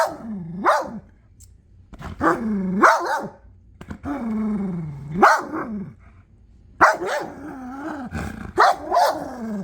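Belgian Malinois growling and barking in several bouts, some sharp barks among drawn-out growls that fall in pitch: a dog guarding its ball.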